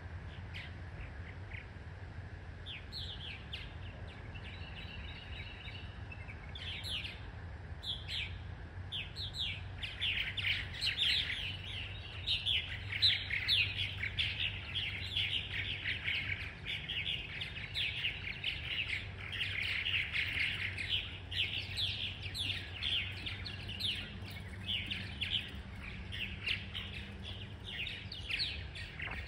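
Purple martins calling, many short chirps and chatter, sparse at first and becoming a dense, near-continuous chorus about a third of the way in. A steady low rumble runs underneath.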